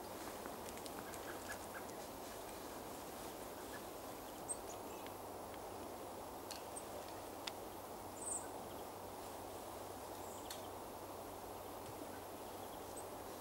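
Outdoor ambience: a steady low rumbling background with a few faint, short high-pitched bird calls scattered through it, the clearest about eight seconds in, and a couple of soft clicks.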